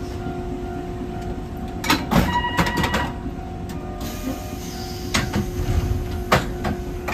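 Hankai type 701 tram heard from the front of the car: a steady hum under a cluster of sharp knocks and clicks about two seconds in, then single knocks further on.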